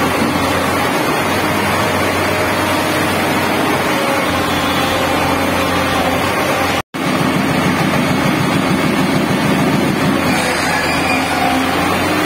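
Tata Hitachi tracked excavator breaking rock at a tunnel face: its diesel engine runs under load while the hydraulic rock breaker hammers steadily, heard inside the rock tunnel. The sound drops out for a split second about seven seconds in.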